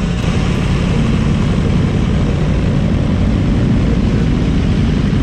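Sport motorcycle running at a steady speed: a constant engine drone under a dense rush of wind noise, with no revving or gear changes.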